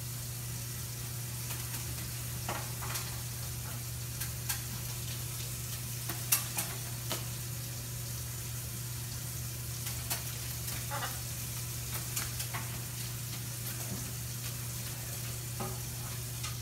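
Kitchen tap running steadily into a stainless steel sink, with scattered short splashes and knocks as a blue-and-gold macaw flaps its wings and bathes in the water.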